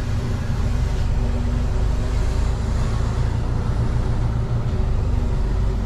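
A heavy truck's diesel engine running on the move, a steady low drone with no breaks.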